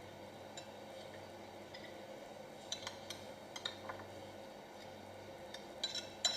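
Light clinks of a spoon against a plate, a few scattered ones and then a quick cluster near the end, over faint steady background noise.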